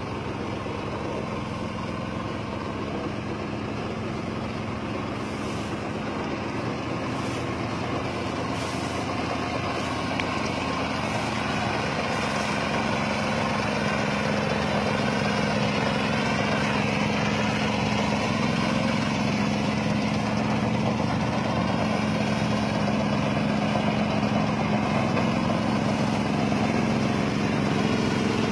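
A motor engine running steadily, growing gradually louder.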